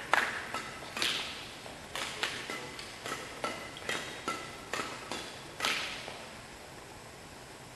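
Scattered hand claps from the spectators petering out after a point, a sharp clap every half second or so, the last one about six seconds in.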